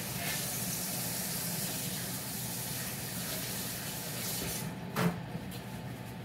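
Kitchen tap running while hands are washed under it; the water stops about four and a half seconds in, followed by a short knock.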